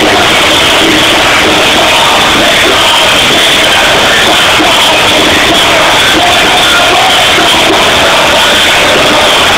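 Live rap concert music over a large PA, recorded so loud that it is overloaded and distorted throughout, at a constant level with no let-up.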